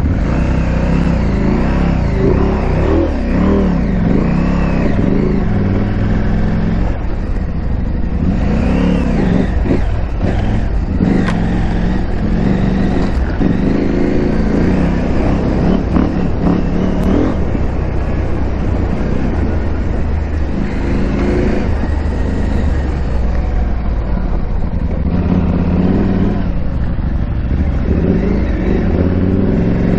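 KTM 890 Adventure R's parallel-twin engine running under way off-road, its revs rising and falling again and again as the throttle is opened and closed, over a steady low rumble.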